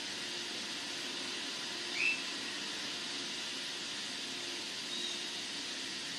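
Steady hiss with a faint hum underneath, broken about two seconds in by a single short rising whistle, and a fainter short high note near five seconds.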